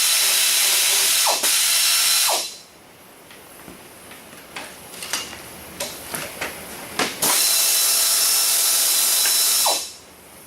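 Power ratchet running in two long bursts of about three seconds each, spinning bolts out of a diesel engine during teardown. Between the bursts come sharp clicks and knocks of the socket and parts.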